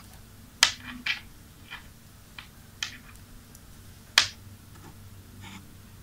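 Scattered soft clicks and rustles of fingers handling a MagSafe charger cable and its metal connector housing as the rubber insulation is worked into place. The sharpest clicks come about half a second in and about four seconds in.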